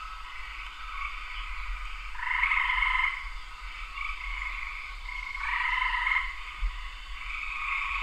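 A chorus of frogs calling steadily, with two louder calls of under a second each, about two seconds in and again about five and a half seconds in.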